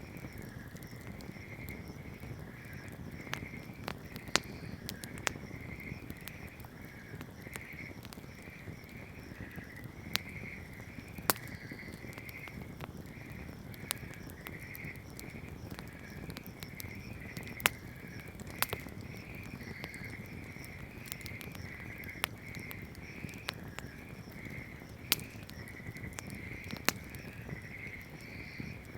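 Wood campfire burning with a steady low rustle and irregular sharp crackles and pops, about a dozen loud ones. Behind it, a continuous high pulsing chorus of calling animals.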